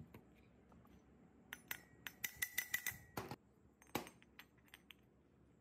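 Small metal parts or tools clinking together: a quick run of light metallic clicks with a faint ring, about five a second, starting about a second and a half in. A single louder knock follows about four seconds in, then a few light taps.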